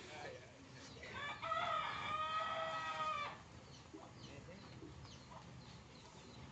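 A rooster crowing once: a single long call of about two seconds, starting about a second in.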